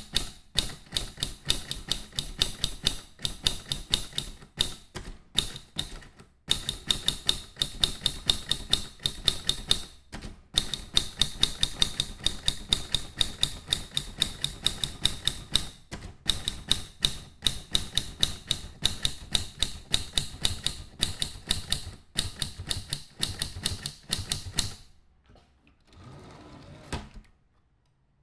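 Mechanical typewriter being typed on: rapid runs of sharp key strikes, several a second, broken by brief pauses. Near the end the typing stops and only a faint sound remains.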